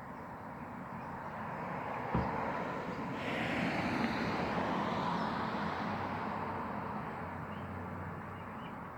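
A passing vehicle, its noise swelling about three seconds in and slowly fading away, over steady outdoor background noise; a single knock about two seconds in.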